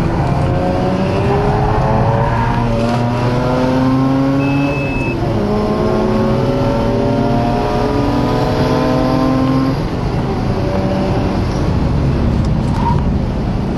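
Mazda RX-8's rotary engine heard from inside the car, accelerating hard through the gears: its pitch climbs and drops back at each upshift several times, then it eases off about ten seconds in.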